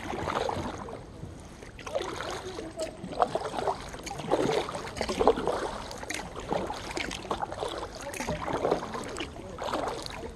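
Kayak paddle strokes: the blades dipping into and pulling through the river water, with splashes and drips in an uneven rhythm.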